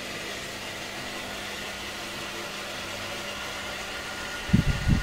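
Steady background hum in a shop, with a faint high steady whine over it. Near the end come a few low, muffled thumps.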